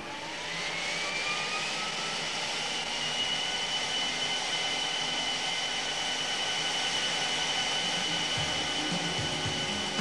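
Industrial vacuum cleaner motor of the GSF AutoVacC robot spinning up. Its whine rises in pitch over the first couple of seconds, then it runs steadily with a high whine over a rushing hiss.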